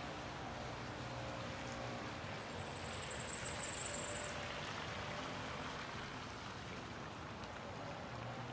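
Steady hiss of a winter storm, like precipitation falling on surfaces. A sharper, high-pitched hiss swells for about two seconds a couple of seconds in, then stops.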